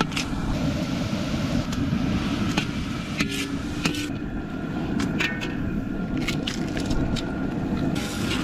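Campfire crackling, with scattered sharp pops and snaps over a steady low rumble.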